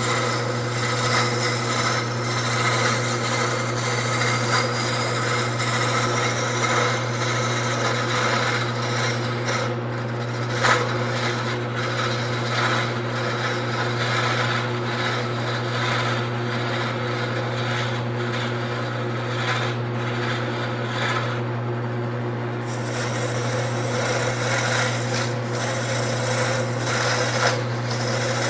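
Wood lathe running with a steady motor hum while a small gouge cuts into the spinning wood, giving a continuous scraping hiss. The cutting breaks off for about a second roughly three-quarters of the way through as the tool is backed off the wood.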